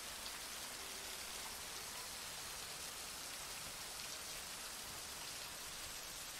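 Heavy rain falling steadily, an even hiss of countless drops with no breaks.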